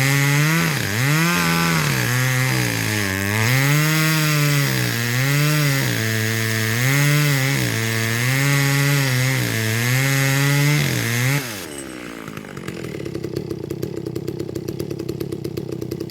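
Two-stroke chainsaw cutting poplar wood, its engine speed rising and falling again and again under load in the cut. About eleven seconds in, the throttle is let off and the engine drops to a lower, quieter idle with a rapid ticking beat.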